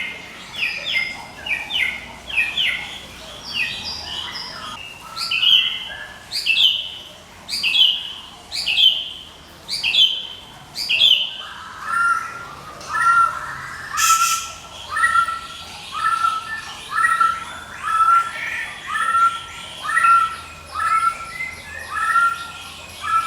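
White-rumped shama of the Medan strain giving its 'ngekek' call without pause: a long run of short, sharp repeated notes. At first they come as falling sweeps about once a second, and from about halfway they change to a lower repeated note at a slightly quicker pace.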